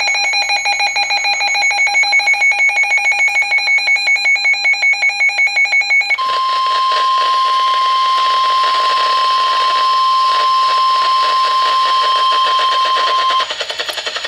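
A Midland WR-100 weather radio sounding a warning alert. For about six seconds it gives rapid pulsing electronic alarm beeps, then the steady 1050 Hz NOAA Weather Radio warning tone plays over radio hiss and cuts off about a second before the end. The tone marks the start of a severe thunderstorm warning broadcast.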